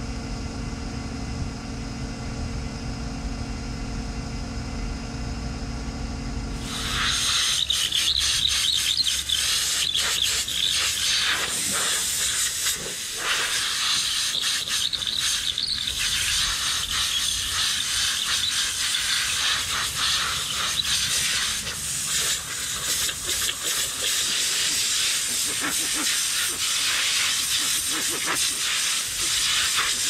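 A John Deere 8235R tractor's diesel engine idling steadily for about the first six seconds. Then a compressed-air nozzle hisses loudly in repeated blasts, blowing dust out of the tractor's engine and cab air filters.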